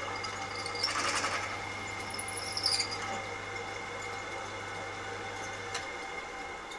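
Bench pillar drill running steadily as a 7/16 in bit is fed into an aluminium magneto body to deepen a tapping hole, cutting briefly twice, about a second in and again near three seconds. Near the end there is a click and the motor's low hum stops as the drill is switched off.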